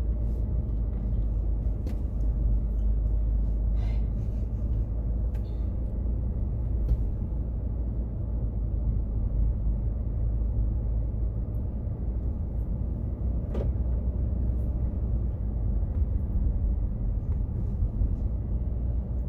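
Steady low rumble of a car driving slowly through town streets, heard from inside the cabin: engine and tyre noise, with a few faint clicks.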